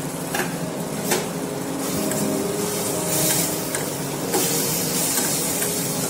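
Vegetables sizzling in hot oil in a stainless steel kadai, with a few sharp clicks of a spatula against the pan and louder hissing as they are stirred about halfway through. Soft background music runs underneath.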